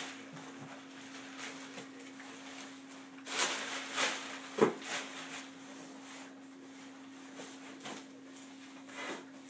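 Cardboard box and plastic packing being handled: a few seconds in, plastic wrap rustles as it is pulled out, followed by one sharp knock, with smaller rustles later. A steady low hum runs underneath.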